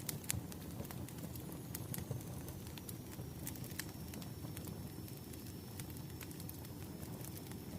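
Wood fire burning, with a steady low rumble and irregular sharp crackles and pops from the burning logs.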